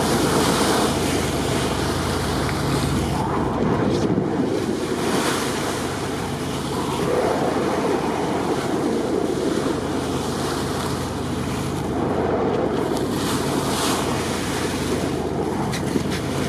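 Steady rushing of sea water and wind, with wind rumbling on the microphone; the wash swells and eases every few seconds.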